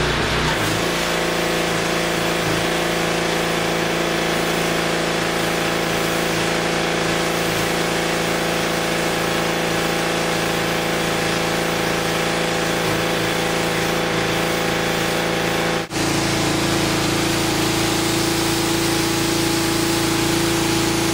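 Gas pressure washer's small engine running steadily after being pull-started. About sixteen seconds in, the sound cuts out for an instant and comes back at a slightly different pitch.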